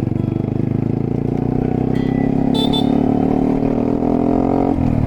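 Honda Monkey's small single-cylinder engine pulling steadily, its pitch climbing slowly, then dropping sharply near the end.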